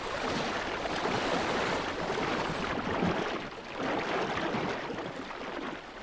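Sea water rushing and surging, swelling twice.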